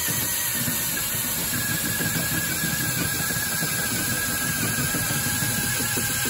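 Cordless drill boring a 1-1/8-inch chip auger bit into a hardwood cherry tree trunk, running steadily under load, with a wavering whine that comes in about a second and a half in.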